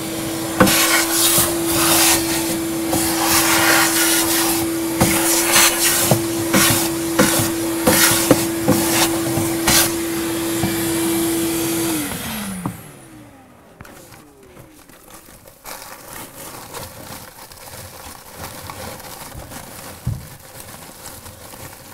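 Shop vac running steadily and sucking up sheetrock dust and chips, with ticks and rattles of debris going up the hose. It is switched off about twelve seconds in and winds down with a falling whine. Quieter rustling and crinkling of foil-jacketed flex duct being handled follows.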